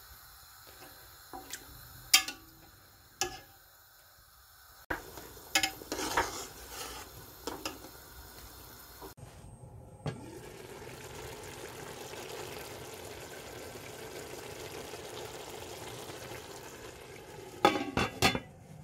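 A metal spatula clinks and knocks against a cooking pot in short sharp strikes, then a steady hiss runs for several seconds, ending in a quick run of clattering near the end.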